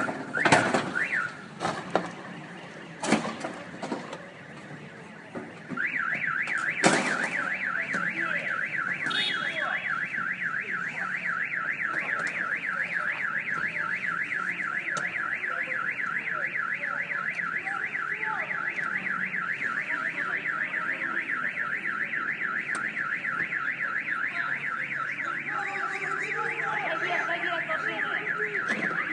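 A few loud, sharp knocks and cracks, then an electronic alarm starts about six seconds in, warbling up and down quickly and evenly, about four times a second, without a break.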